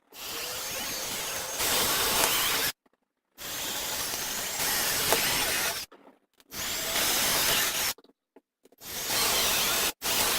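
Power drill boring four holes in turn through vinyl siding to mark the corners of an outlet box, each run a steady burst of drilling that gets louder partway through, with short pauses between holes.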